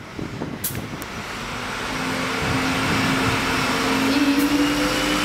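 City bus running close by, its engine note and a thin high whine rising slowly in pitch and growing louder as it gathers speed.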